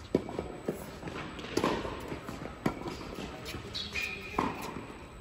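Tennis balls struck by rackets and bouncing on an indoor hard court during a rally: a series of sharp pops, the loudest just after the start, each with a short echo in the large hall.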